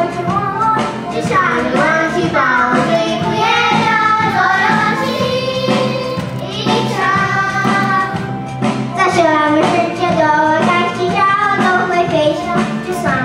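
A group of children singing the theme song of a Chinese children's cartoon into microphones, over music accompaniment.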